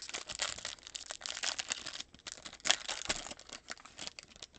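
Foil wrapper of a Panini Prizm basketball card pack being torn open and crinkled by hand: a dense run of crackling and tearing, loudest a little over halfway through.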